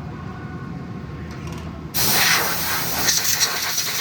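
A steady low machine hum, then about halfway in a sudden loud hiss of compressed air from a blow gun that keeps going.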